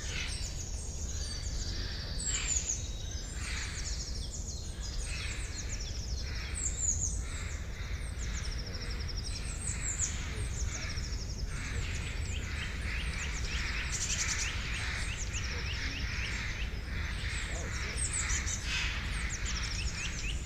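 Forest birdsong: many small birds chirping and calling over one another, over a steady low background rumble.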